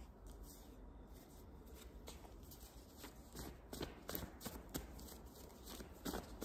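Tarot cards being shuffled by hand: a run of soft, quick flicks and taps that starts about two seconds in and comes thicker from about three seconds on.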